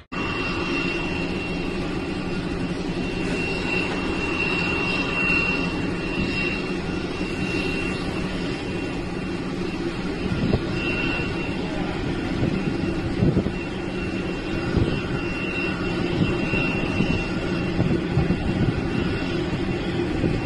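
Jet aircraft engine running: a steady rumble with a high whine that comes and goes, and a few short knocks past the middle.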